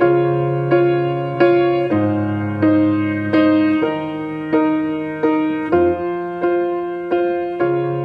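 Background music: a slow, gentle piano piece, single notes struck at an even, unhurried pace over held low notes.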